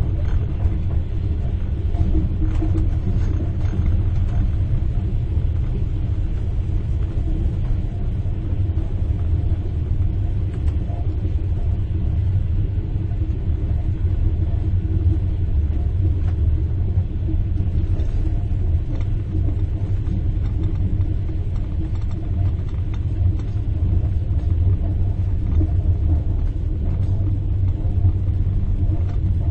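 Train in motion heard from inside a compartment: a steady low rumble of wheels on the rails, with a spoon faintly tinkling against a cup now and then.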